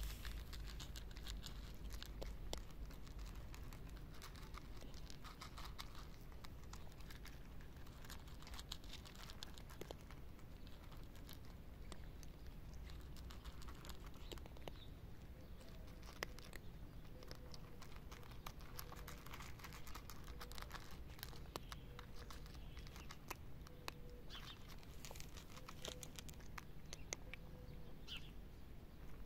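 Two cats crunching dry kibble from paper plates: a steady run of small, crisp crunches and clicks, with the plates crinkling now and then.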